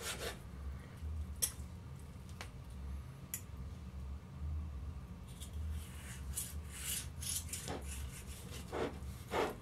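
A long knife sawing through a cooked tri-tip roast held with a fork, the blade rasping against a wooden cutting board. The strokes are faint, with a few sharp clicks in the first few seconds and denser scraping in the second half.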